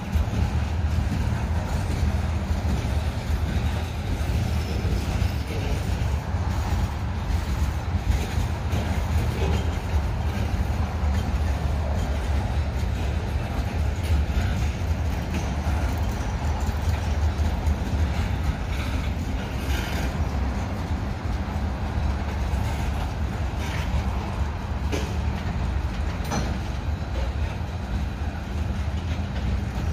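Freight train of covered grain hopper cars rolling past close by: a steady low rumble of steel wheels on the rails, with scattered sharp clicks and clacks.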